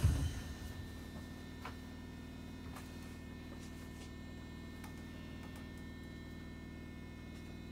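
Steady electrical hum with a few faint ticks inside a JR 211 series electric train car standing at a station, from its onboard equipment while the traction motors are idle.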